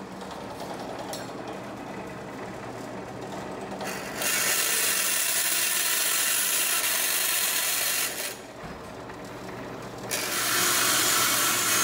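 Vertical band saw running with a steady motor hum, its blade cutting a sheet-aluminum blank. A loud, even cutting hiss starts about four seconds in, breaks off about four seconds later, and starts again about two seconds after that.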